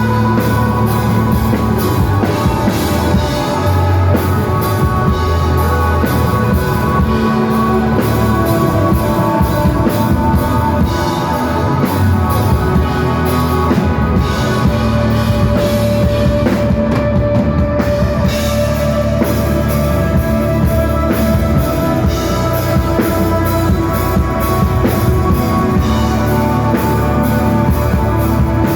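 A rock band playing live, without vocals: electric guitar holding long notes over bass and a steady drum-kit beat.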